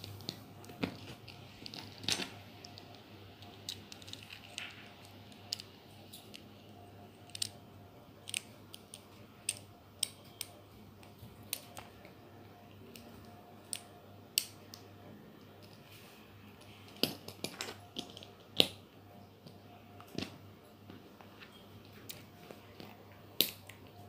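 Plastic Lego bricks and wheels clicking and tapping as they are handled and pressed together, in sharp irregular clicks every second or so over a faint steady hum.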